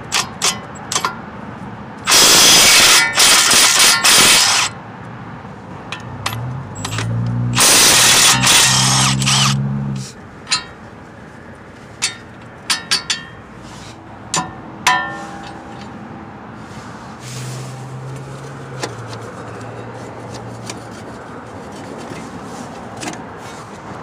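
Compact Milwaukee cordless impact wrench hammering the strut bolt nuts loose in two bursts of about two and a half seconds each. Around the second burst its motor whine climbs in steps as the nut spins off. Scattered metal clinks follow as the bolts are worked out.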